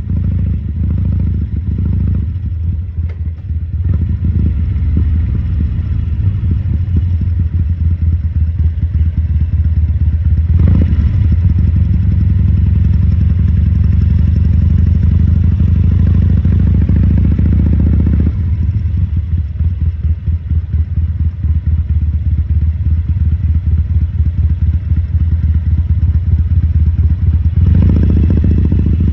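2014 Harley-Davidson Sportster 1200 Custom's air-cooled V-twin running. The throttle opens briefly about ten seconds in, the engine holds a fuller note for several seconds after that, and the throttle opens again near the end.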